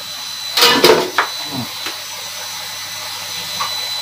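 Tofu and vegetables sizzling steadily in a hot frying pan as they are stir-fried, with a few short clatters of the utensil against the pan about a second in.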